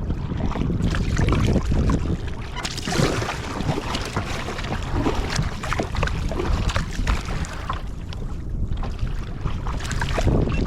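Wind buffeting the microphone over water splashing and sloshing around a sea kayak, irregular and fairly loud.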